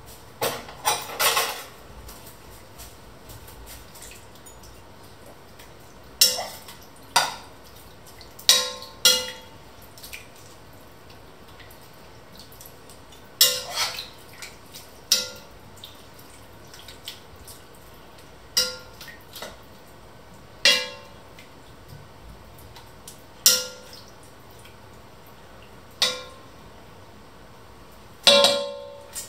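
A spatula stirring a stew in an enamelled cast-iron pot, knocking and scraping against the pot's side and rim: sharp knocks at irregular intervals, each with a brief ring, some in quick pairs, with the wet sound of the stew being turned.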